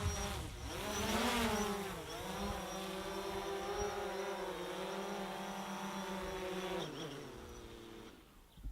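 Quadcopter drone's rotors buzzing: the pitch rises about a second in, dips, then holds steady. Near the end the motors wind down and fade out, as the drone lands and stops.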